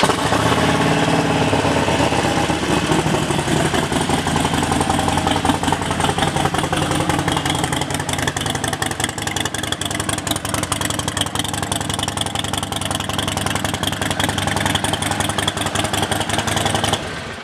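2016 Harley-Davidson Sportster Forty-Eight's 1200cc air-cooled V-twin running steadily at idle through an aftermarket Cobra exhaust. The sound cuts off abruptly near the end.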